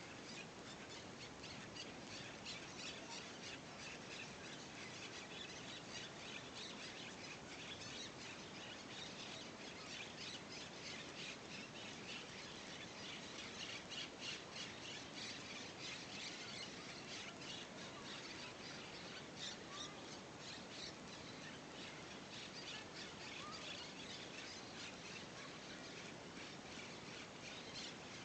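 Dawn chorus of many birds calling at once: a dense chatter of short, high chirps and squawks over a steady background hiss.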